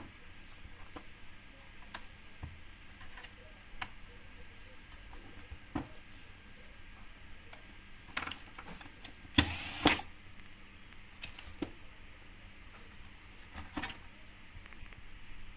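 Scattered light clicks and taps of the metal shield plate and housing parts of a spectrum analyzer being handled during assembly, with one louder, noisy handling sound lasting about half a second about two-thirds of the way through.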